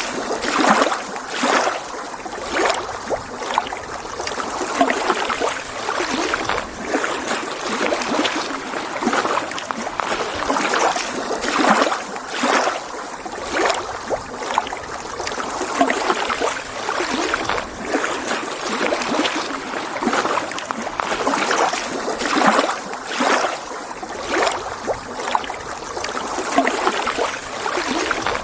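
Small lake waves lapping and splashing against the shore in irregular surges, one every second or two.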